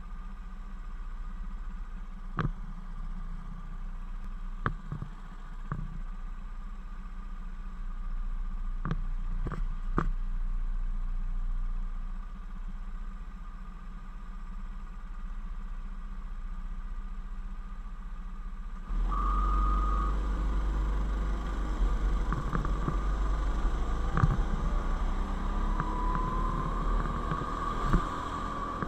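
Go-kart engines heard from on board: a steady low idle on the starting grid with a few sharp clicks and knocks. At about 19 seconds the sound jumps louder as the karts pull away, and a rising engine whine follows as the kart accelerates.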